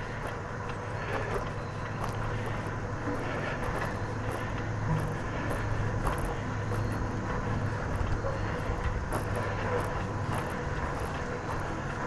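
Bicycle rolling over a concrete bridge deck: a steady rush of tyre and riding noise, with a few faint light knocks along the way.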